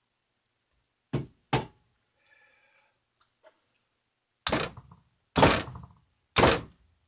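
Hammer blows driving a roll pin through a new Suzuki LJ20 distributor drive gear and shaft: two quick lighter taps about a second in, then three heavier strikes about a second apart near the end.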